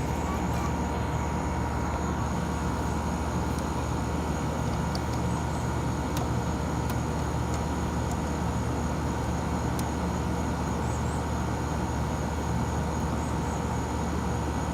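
Air-conditioner condenser unit running: a steady low hum from the compressor and fan, with a faint steady whine above it.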